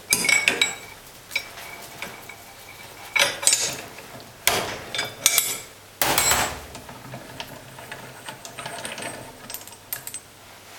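Steel parts of a Bosch unit injector clinking and knocking against the clamping device and each other as the nozzle nut is unscrewed and the nozzle parts are taken off. There are several sharp metallic knocks, some ringing briefly, and the loudest come about four and a half and six seconds in.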